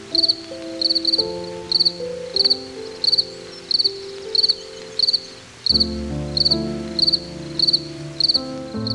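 A cricket chirping steadily, about three short high trills every two seconds, over soft background music of slow held notes that deepen about two-thirds of the way through.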